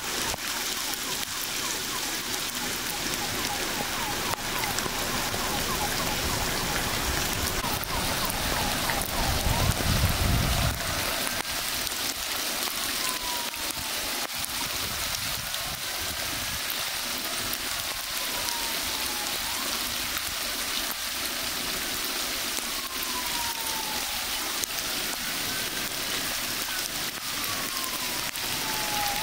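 Heavy rain falling onto a flooded street, a steady hiss of drops hitting standing water. A low rumble underneath stops abruptly about ten seconds in, and later faint short falling tones recur every few seconds.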